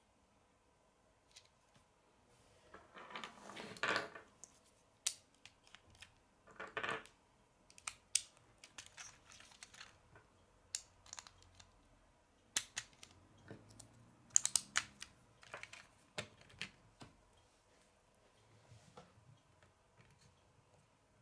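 Hard plastic Lego bricks clicking and rubbing as the small Lego City muscle car model is handled and parts are pressed on, with a couple of longer scraping rustles about three and seven seconds in. Near the end, a faint low rumble as the toy car rolls on the wooden table.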